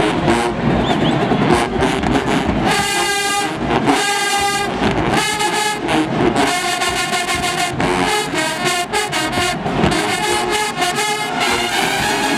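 College marching band brass section, sousaphones and trumpets, playing loud, held chords in a string of repeated blasts from about three seconds in, over a dense, noisy band sound.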